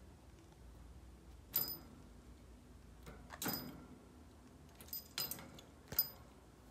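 Metal clinks and jingles from hanging toys in a parakeet cage: about six sharp, short clinks spread irregularly, each with a brief high ring.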